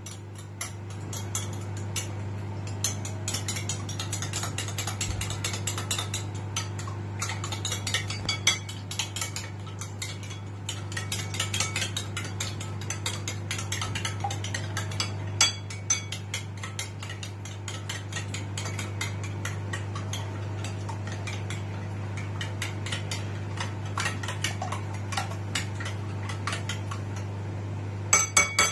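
Metal spoon beating eggs and vanilla in a ceramic bowl: rapid, continuous clinking and scraping of the spoon against the bowl, over a steady low hum. A few sharper taps near the end.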